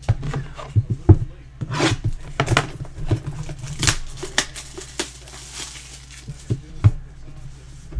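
Cardboard trading-card boxes being handled and opened by hand: a quick series of knocks and taps from the boxes, with rustling and tearing of the packaging.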